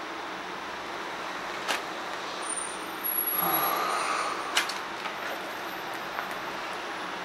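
Plastic sheet-protector pages of a binder being turned by hand: a crinkling swish about three seconds in, with a few sharp clicks around it, over a steady background hiss.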